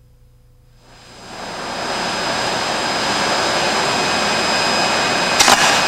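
A steady loud rushing noise fades in about a second in. Near the end comes a brief crackle of several sharp snaps: a steel shaving shorting across the damaged insulation of two aircraft wires and arcing intermittently for a moment before the circuit clears.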